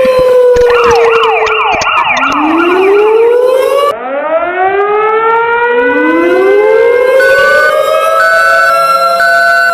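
Emergency alert system (EAS) alarm made of layered siren sounds. A falling siren tone gives way to a fast up-and-down warbling siren, then several sirens wind up one after another and hold steady. From about seven seconds in a repeating beep joins them.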